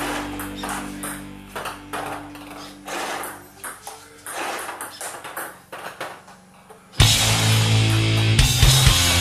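A table tennis ball clicks rapidly and repeatedly off paddle and table under quiet, fading rock music. About seven seconds in, loud guitar-driven heavy rock music cuts in suddenly.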